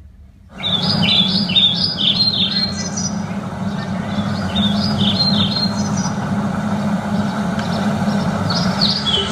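Birdsong played as the opening of a dance's music track, starting suddenly about half a second in: repeated quick chirping calls over a steady hum and hiss.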